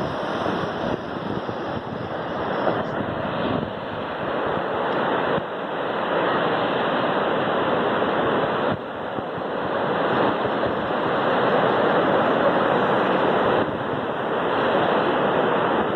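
Ocean surf at a beach: a steady, dense rush of breaking and washing waves that swells and eases.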